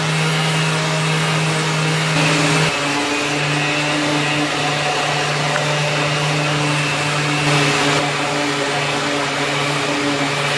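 Electric handheld sander running steadily against a 3D-printed plastic ball, sanding down the high spots and ridges between its panels. The motor hum breaks briefly about three seconds in, then carries on.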